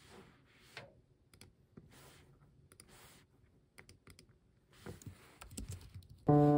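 Light, irregular typing on a low-profile computer keyboard, mixed with a few mouse clicks. Near the end, piano music comes in loudly.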